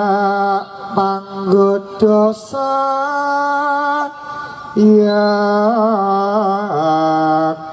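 Javanese langgam singing: a single voice holding long, steady notes that change pitch every second or two, with a short wavering ornament about six seconds in.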